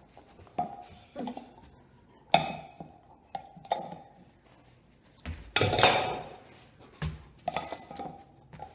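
Small metal tins clinking and knocking on a foam mat as a German Shepherd noses and pushes them while searching for the scented one. There are several separate knocks, some with a short metallic ring, the loudest a bit over two seconds in, and a longer rattling scrape a little past the middle.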